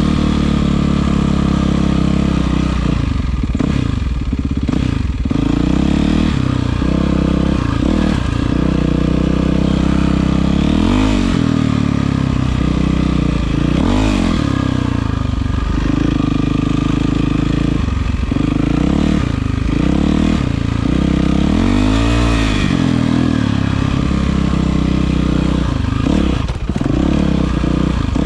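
Yamaha WR450F single-cylinder four-stroke dirt bike engine running through an Akrapovič exhaust, its revs rising and falling again and again in short swells between steadier running.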